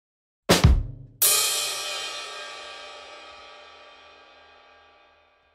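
A short, low drum hit, then a little later a cymbal crash that rings out and slowly fades over about four seconds, as an opening sting.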